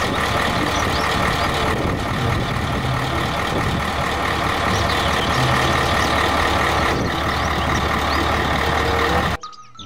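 Heavy dump truck's diesel engine running steadily while its tipper body is raised, a constant low hum under broad mechanical noise. It cuts off suddenly near the end.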